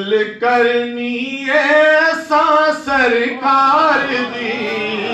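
A man's voice singing a devotional naat unaccompanied through a microphone and PA, with long held notes that bend and waver in pitch.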